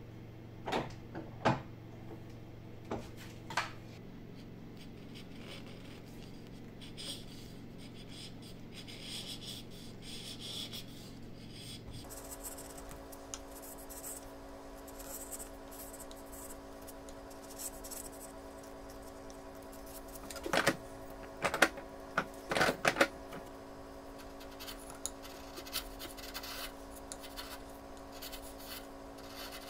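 Bench chisel paring thin shavings from the throat of a wooden strike block plane: soft scraping, slicing strokes over a steady low hum. There are a few sharp knocks in the first few seconds and a cluster of louder knocks and clicks about two-thirds of the way through.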